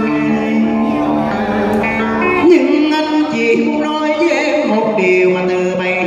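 A man singing an amplified cải lương excerpt into a microphone, with long held notes and vibrato, accompanied by a plucked đàn tranh zither.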